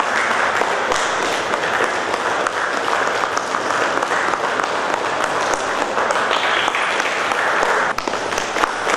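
A small group of people clapping steadily, with a brief dip in the clapping about eight seconds in.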